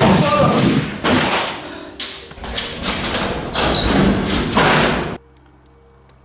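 A run of loud thumps and bangs that cuts off suddenly about five seconds in.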